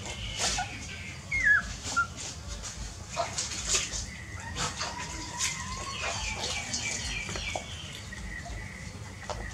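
Newborn puppies suckling at their mother, giving a run of short wet clicks and smacks, with a few brief high squeaks and quick chirps among them.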